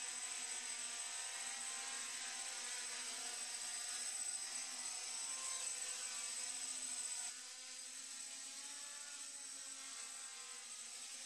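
Quadcopter's four brushless outrunner motors (MT2213 1100 kV) and propellers whirring steadily in flight, with a thin high whine on top. It gets a little quieter about seven seconds in.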